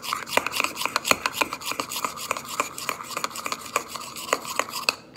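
Metal spoon stirring a thick soap-and-salt mixture in a ceramic bowl: quick, irregular scrapes and clicks against the bowl, several a second, stopping just before the end.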